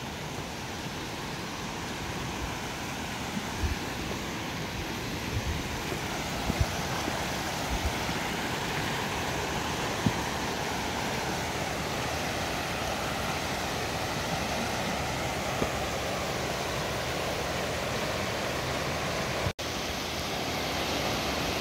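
Creek water rushing over rocky cascades, a steady hiss that grows slightly louder. A few low thumps come in the first half, and the sound drops out for an instant near the end.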